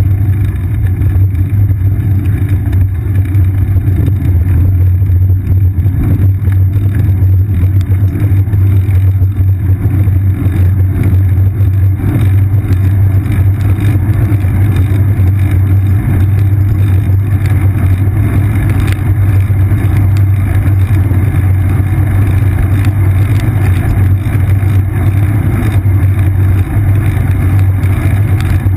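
Steady loud low rumble of a bicycle riding on a wet paved path, with wind and road vibration picked up by the seat-mounted GoPro Hero 2.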